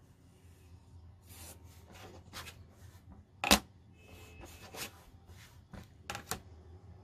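A marking tool drawing seam-allowance lines on cotton fabric: a series of short scratchy strokes, with one sharp click about three and a half seconds in.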